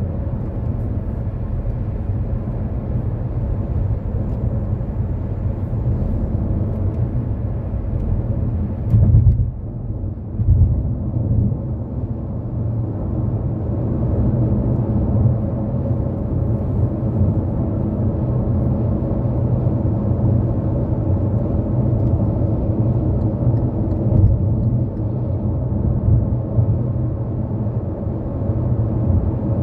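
Car driving at highway speed: a steady low rumble of tyres on the road and engine hum. It swells briefly louder about nine seconds in, then drops for a moment.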